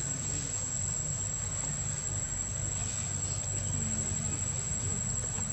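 Steady high-pitched insect drone over a low background rumble.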